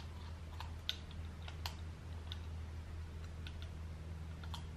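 A few faint, scattered small clicks as the M4 screws are tightened into the back of a Trail Tech Vapor speedometer on its handlebar bracket, over a steady low hum.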